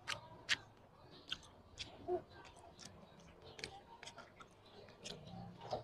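A person chewing grilled fish close to the microphone: irregular wet smacks and clicks from the mouth, roughly two a second.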